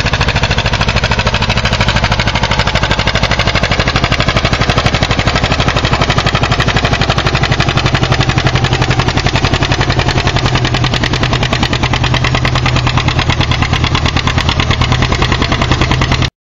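John Deere two-cylinder tractor engine pulling a weight-transfer sled under load, a fast, steady popping exhaust beat over a low drone. It cuts off suddenly near the end.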